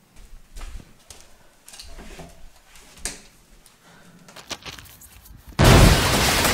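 Scattered soft knocks and thuds of someone moving through a room and brushing against a door frame. About five and a half seconds in, a sudden loud, even rush of noise cuts in.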